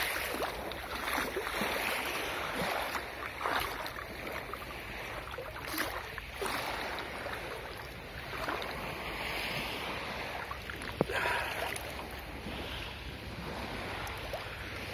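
Calm sea water sloshing and lapping around someone wading out from a stony shore, with a few brief splashes. Wind buffets the microphone.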